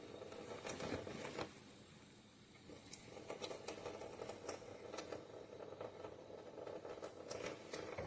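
Faint rustling with many scattered light clicks and taps, more frequent in the second half.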